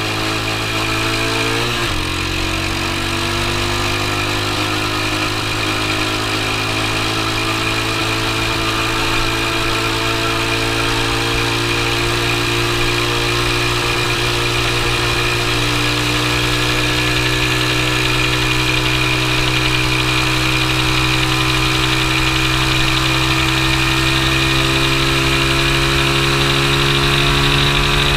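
X19 super pocket bike's engine under hard acceleration. It climbs in pitch, dips briefly at an upshift from third to fourth gear about two seconds in, then pulls steadily in fourth with a slowly rising pitch.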